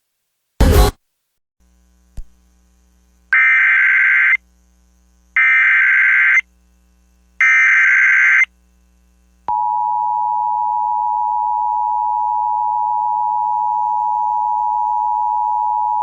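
Emergency Alert System SAME header: three one-second bursts of warbling digital data about a second apart. From about nine and a half seconds in comes the steady two-tone EAS attention signal, which opens a new severe thunderstorm warning. A short burst of noise comes near the start.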